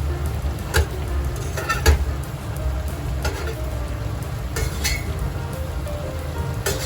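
Food sizzling in a frying pan as it is stirred, with a utensil clinking against the pan about five times, over background music.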